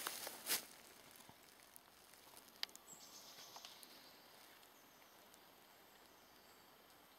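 A last couple of footsteps on dry leaf litter on the forest floor in the first half-second, then near-quiet woodland with a few faint clicks and rustles.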